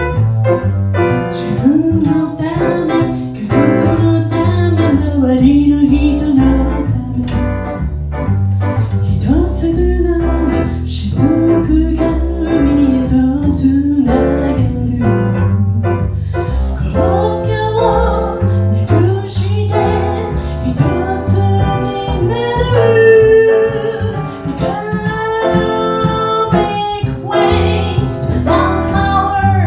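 Live jazz ballad: a woman singing, accompanied by piano and bass.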